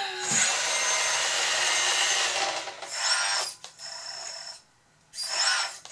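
1:14 Kabolite K966 RC hydraulic wheel loader driving fast in second gear: a steady electric-motor-and-gear whir with a high whine that rises and falls with the throttle. The sound drops away twice in the second half, briefly stopping altogether about a second before the end.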